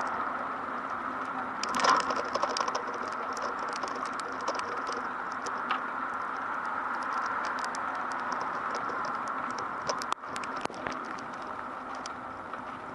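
Rain pattering steadily, a constant hiss sprinkled with many small ticks, from a typhoon's downpour.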